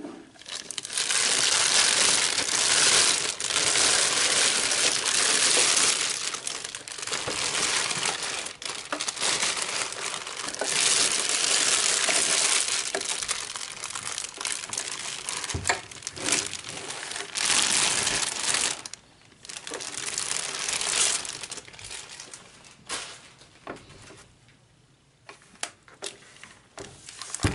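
A clear plastic bag crinkling and rustling as it is pulled and worked off a sewing machine. The noise comes in long, loud stretches with a short break, and eases off over the last few seconds.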